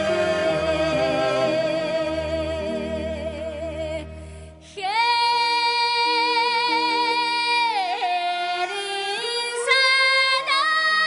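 Background music: a woman singing long held notes with vibrato, over a low accompaniment in the first half. About four and a half seconds in, it dips briefly, then rises into a long high note.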